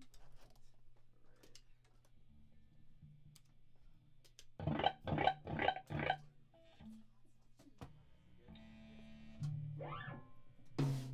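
Distorted electric guitar through an amplifier, between songs: a steady low amp hum with scattered picked notes, then about halfway four loud strummed chords in quick succession. Later comes a short rising sweep and a sharp hit just before the end.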